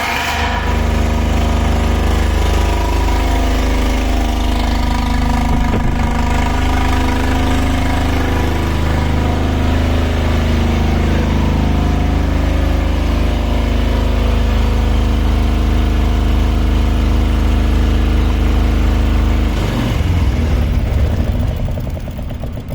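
6 kW marine seawater-cooled diesel generator running steadily at constant speed. About 20 seconds in its note changes and grows rough, and the sound begins to fall away at the very end.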